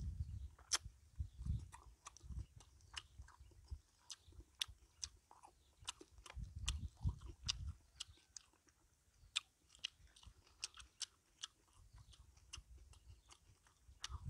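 Close-up eating of grilled fish: chewing with many sharp, wet mouth clicks and smacks, and spells of soft low thudding as the food is chewed, while fingers pull the fish flesh off the bones.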